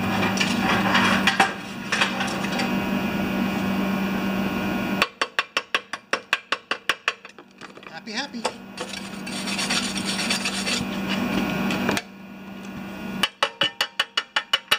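Arc welding on a steel bracket on an air compressor tank: a steady crackling hiss over a hum that stops about five seconds in. It is followed by a run of rapid, sharp chipping-hammer taps knocking slag off the weld, another stretch of crackling, and a second quick run of hammer taps near the end.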